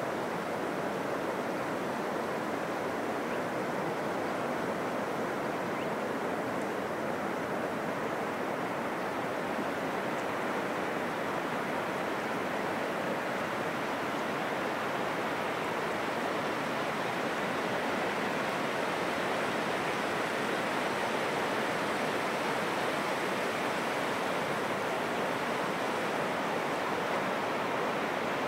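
Heavy surf breaking on a sandy ocean beach in the rough swell after a typhoon: a steady, continuous wash of waves that swells slightly louder about halfway through.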